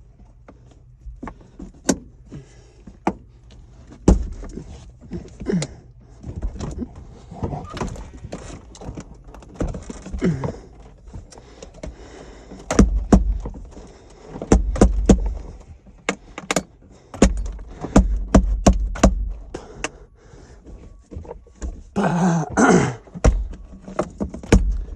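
Objects being handled and shifted about: many clicks, knocks and clunks, with heavy thuds in the middle and a louder stretch of scraping or rustling near the end.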